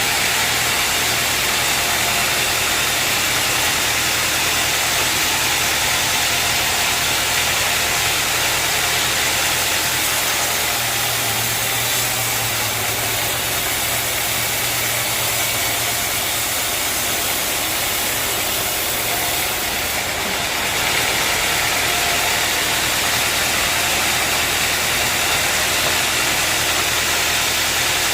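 Sawmill machinery running steadily: a constant motor hum under an even, unbroken hiss.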